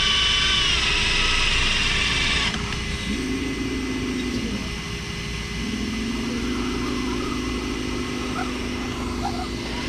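Electric motors and gear trains of RC scale crawlers whining, the pitch rising and falling with throttle. A higher whine cuts off suddenly about two and a half seconds in; a lower one rises, drops away near the middle, then comes back and holds.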